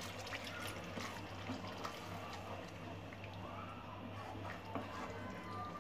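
Water poured from a cup into thick curry masala in a pan, then a spatula stirring the thinned masala; faint throughout.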